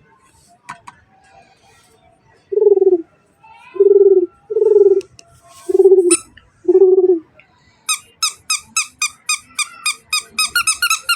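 Baby toy sounds: five low hooting notes, each about half a second, then a fast run of short, high squeaky chirps that speeds up near the end.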